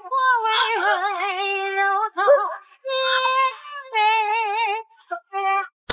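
A woman singing high, held notes with a wide vibrato, in several short phrases broken by brief pauses.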